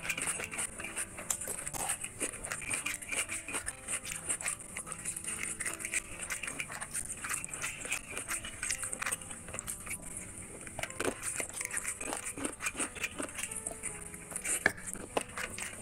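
Close-up eating sounds of chicken curry and rice eaten by hand: wet chewing and lip-smacking, with fingers squishing rice into gravy and teeth biting into a chicken leg piece. Soft background music plays underneath.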